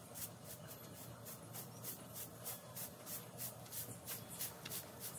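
Short straw hand broom sweeping a packed dirt yard, a rhythmic swish-swish of about three strokes a second as the bristles scrape dust across the ground.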